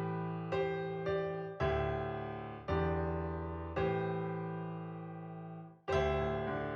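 Background music on piano or electric piano: chords struck and left to ring and fade, one held for about two seconds, with a brief break near the end before the next chord.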